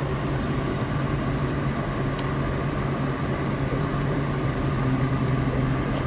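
Steady low hum of running workshop machinery, with a few faint clicks from a hand tool tightening a piston-ring compressor.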